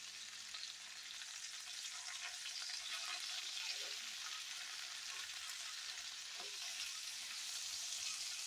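Chopped onions, bell peppers and mushrooms sizzling in a hot pan: a steady frying hiss with faint scattered crackles.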